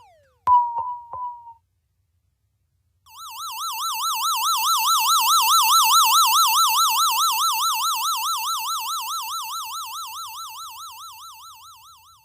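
Synthesized sci-fi sound effect: an electronic tone warbling up and down about four times a second like a siren, swelling in and then slowly fading out. Before it, about half a second in, comes a brief electronic zap with a few clicks.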